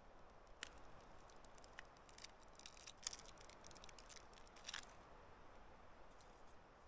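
Faint, scattered light clicks and taps of small split-wood kindling pieces being handled and set into a kindling teepee, with a cluster of clicks in the middle and a sharper one near the end.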